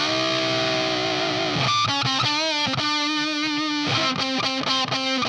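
Electric guitar played through a Sola Sound Mk IV Tone Bender fuzz pedal (the Esprit Blanc), with a fuzzed, nasal tone. One note is held, then several single notes follow with wavering vibrato.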